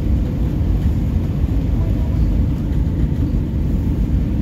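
Airbus A319 cabin noise on approach: a steady low rumble of engine and airflow noise heard from inside the cabin, with a faint steady hum above it.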